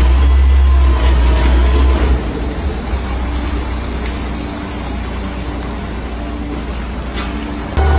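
A heavy truck's engine running with a deep, steady low hum, which drops in level about two seconds in.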